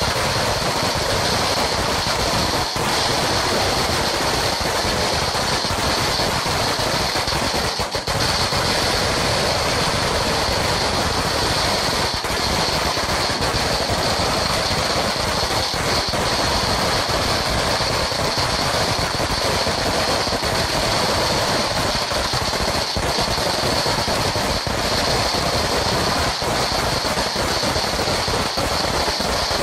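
A long Sinturon ni Hudas firecracker belt going off in a continuous, rapid crackle of small bangs, steady in loudness without a pause.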